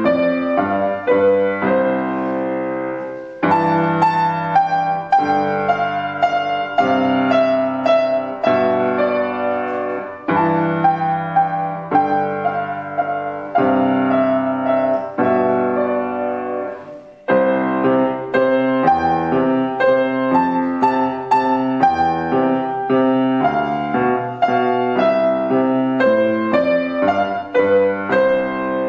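Grand piano playing a classical-style piece, with short breaks between phrases about three and seventeen seconds in, and a final chord held and fading near the end.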